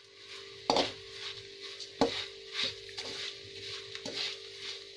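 Metal spoon stirring dry poha in a metal kadhai with a little hot oil, scraping through the flakes and knocking against the pan several times, the sharpest knocks about a second in and at two seconds. A steady hum sits underneath.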